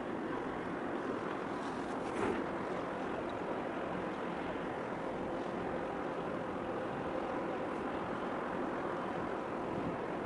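Steady wash of wind and harbour water, with a faint steady hum from a passing container ship. There is a brief thump about two seconds in.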